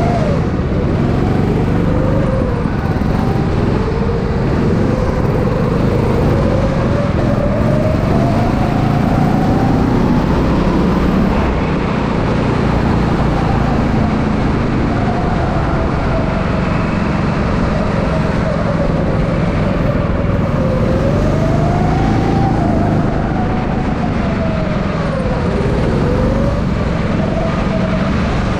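Go-kart engine running hard, its pitch rising and falling every few seconds as the kart speeds up and slows, over a steady low rumble.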